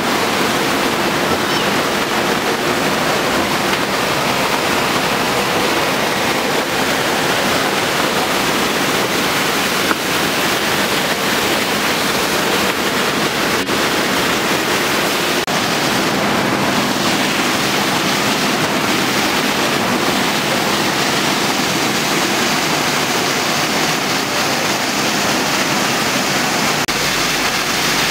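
Muddy flash-flood water rushing down a steep stone gully and drain in a steady, loud torrent.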